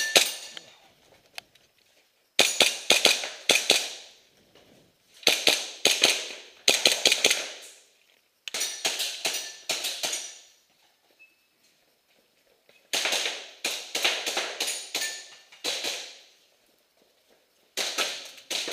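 Airsoft pistol being fired in quick strings of several sharp, echoing shots, about seven strings a second or two apart with one longer pause past the middle.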